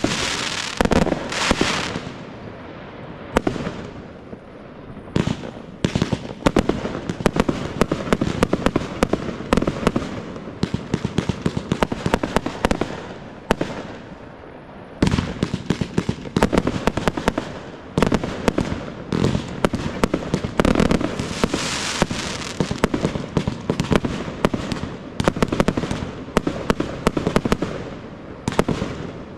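Fireworks display: aerial shells bursting in quick volleys, with crackling between the bangs. The firing thins out about two seconds in and comes thick and fast again from about halfway through.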